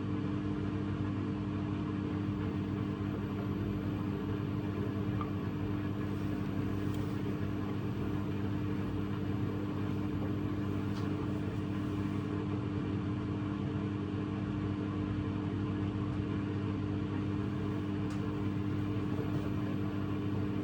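Washing machine running a steady spin cycle: an even mechanical hum with several held low tones.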